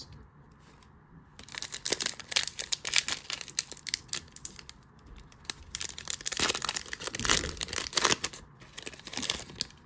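Foil trading-card pack wrapper being torn open and crumpled by hand: dense crackling that starts about a second and a half in, with a short lull in the middle.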